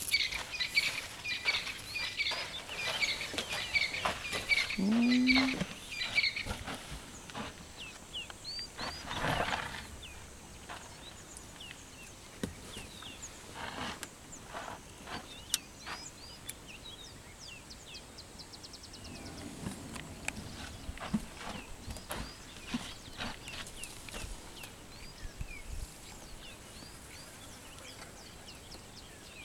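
African bull elephant at very close range: a short low call that rises and falls about five seconds in, and a breathy blow about nine seconds in, with birds chirping in the background.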